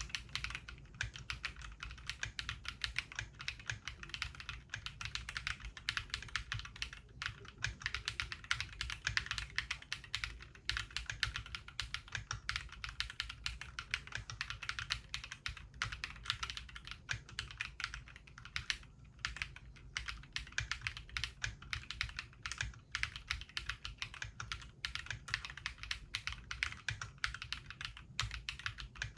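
Mechanical keyboard (Mongeek M5 with fully lubed Akko Piano switches, foam switch films and foam-dampened case) being typed on quickly, a continuous stream of keystroke clacks with only brief pauses.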